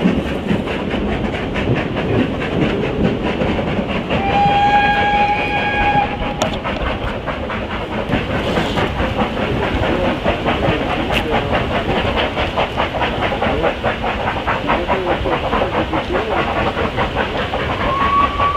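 Two 2-6-2T narrow-gauge steam tank locomotives double-heading a heavy train up a steep gradient: a fast, even beat of exhaust chuffs from the engines working hard. A steam whistle sounds once for about two seconds, about four seconds in, and another whistle starts right at the end.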